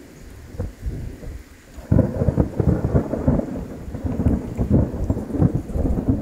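Thunder from a passing storm: a low rumble that breaks in suddenly about two seconds in and keeps rolling, with irregular crackles.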